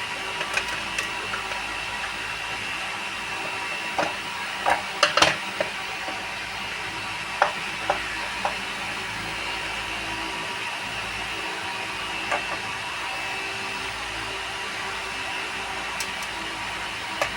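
Scattered light clicks and knocks as a set-top box's casing is handled and opened, over a steady electrical hum with a faint high whine. A short cluster of knocks comes about four to five seconds in, then single clicks.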